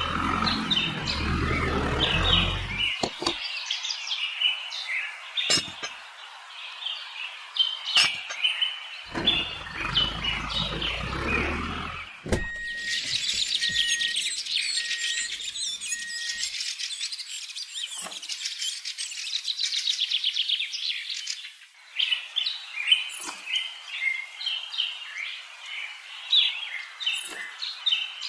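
Small birds chirping over and over, with a low rumble in the first few seconds and again from about nine to twelve seconds in. From about twelve to twenty-one seconds a dense, high buzzing takes over before the chirping returns.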